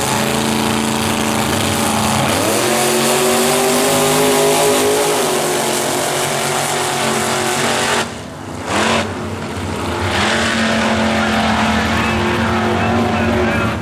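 Two vintage drag-racing cars launching side by side and running flat out down the strip, engines at full throttle. The engine note drops and climbs again about two seconds in, at a gear change, and the sound dips sharply in level for about a second around eight seconds in before the steady full-throttle note returns.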